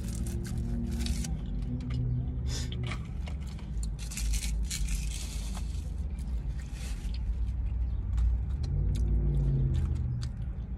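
Close-up eating sounds: chewing, with a plastic fork scraping in a takeout bowl, and a few low hummed 'mm' sounds. A parked car's engine runs with a steady low rumble underneath.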